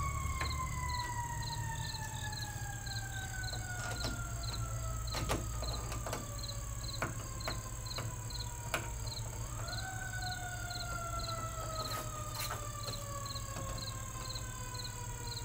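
A siren wailing: one long tone that slowly falls for about nine seconds, then sweeps up sharply and begins falling again, over a steady low hum.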